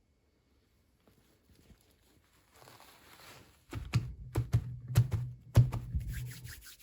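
Hands handling small plastic toy pieces and packaging. A soft rustle is followed, about halfway through, by a quick run of sharp clicks and taps over a low hum.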